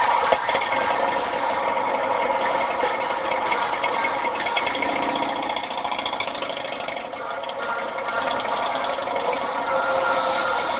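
Motorcycle engines running at idle, heard thin and boxy because the sound is replayed through a computer speaker and re-recorded on a phone.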